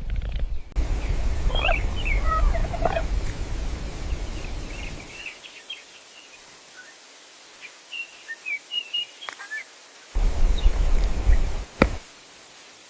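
Birds chirping in short calls over an outdoor ambience, with a low rumbling noise through the first half and again briefly near the end, and a single sharp click just before the end.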